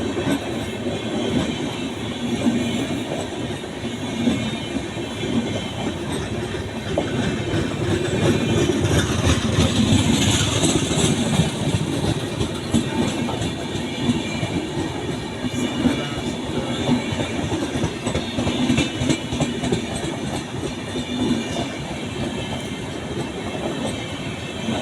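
Udaipur City–Khajuraho Express passenger train running on the rails, its wheels clattering steadily over the rail joints and loudest about ten seconds in.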